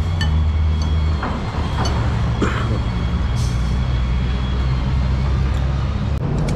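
Road traffic dominated by a nearby vehicle engine running, a steady low drone whose pitch shifts about a second in, with a few light clicks over it.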